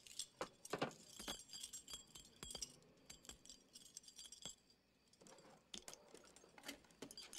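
Metal dog tags on a bead chain faintly clinking and jingling as they are handled, in scattered light clicks that thin out midway and pick up again.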